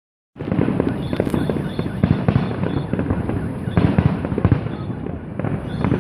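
Aerial fireworks display: many shells bursting together in a dense, irregular run of crackling pops and bangs, with heavier bangs about two and four seconds in.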